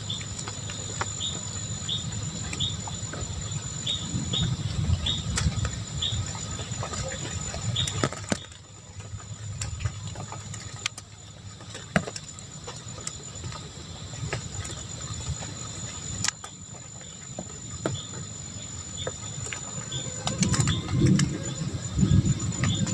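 Nature ambience: a steady high insect drone with short falling bird chirps that come thick for about eight seconds and then thin out, over a low rumble that grows near the end.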